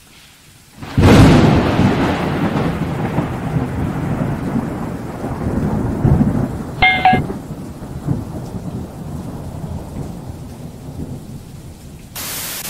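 A thunderclap about a second in, rolling and slowly fading over the following seconds under a rain-like hiss. A brief chime-like tone sounds around the seventh second, and a burst of static hiss starts near the end.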